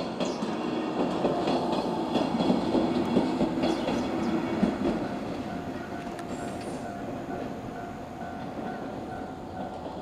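A JR West 103-series electric train passing over a level crossing, its wheels clattering over the rail joints. The clatter is loudest in the first half and fades away after about five seconds. A steady, evenly repeating level-crossing alarm rings throughout.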